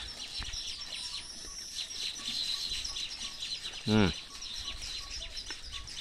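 Birds chirping steadily in the background, with a faint repeated peeping note, and one short low vocal sound about four seconds in.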